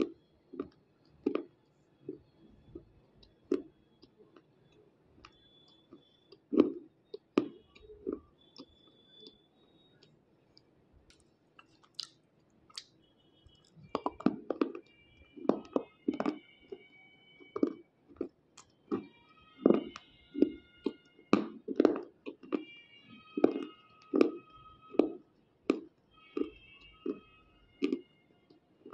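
Close-up crunching and chewing of white unshaped slate pencil pieces. The crunches are scattered at first. A fresh bite comes about halfway through, and after it the crunching runs at roughly two crunches a second.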